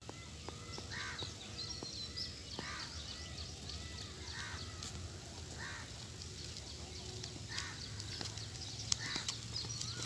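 Birds calling in woodland: a short call repeated every second or two, with higher chirps behind it and a few sharp clicks.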